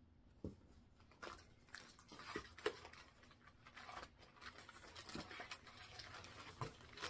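Cross-stitch chart packets in clear plastic sleeves being shuffled and flipped through in a cardboard box: faint plastic crinkling with scattered light taps and clicks.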